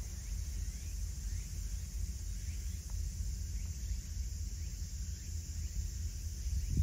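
Outdoor ambience: a steady low rumble with faint, short rising chirps from insects or birds repeating every second or so, and a thump at the very end.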